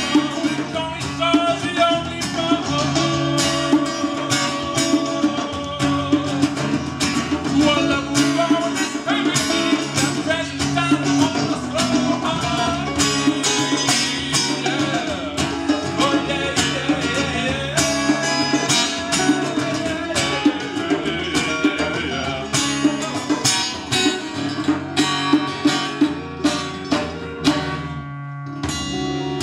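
Instrumental passage of a folk song played live on two strummed acoustic guitars over an electric bass line, in a steady rhythm. It drops out briefly near the end, then picks up again.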